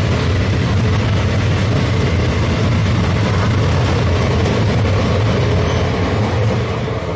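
Indian Railways passenger coaches rolling past at speed as the train accelerates out of the station: a loud, steady rumble of wheels on rail that eases slightly near the end as the last coach clears.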